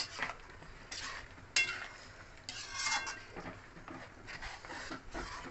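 A spoon stirring thick mutton curry in a metal pot, with irregular clinks and scrapes against the pot's sides and bottom.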